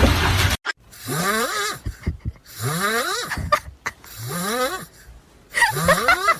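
An animal's repeated breathy calls, four drawn-out sounds each rising in pitch, about one and a half seconds apart. They follow a loud noisy stretch that cuts off about half a second in.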